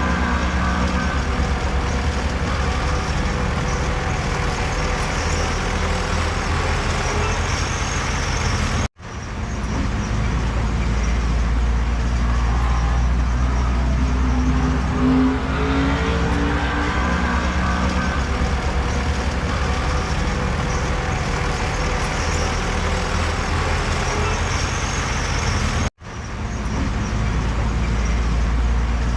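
Heavy diesel earthmoving machinery running steadily under load, a deep engine rumble with a shifting higher drone. The sound cuts out abruptly twice, about nine and twenty-six seconds in, and comes straight back.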